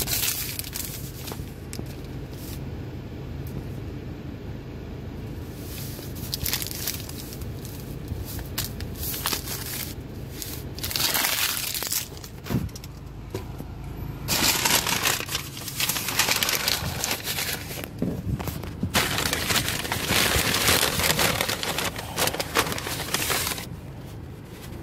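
A paper receipt and a paper takeout bag being handled and crumpled: repeated crinkling and rustling, louder and denser in the second half, over a steady low hum.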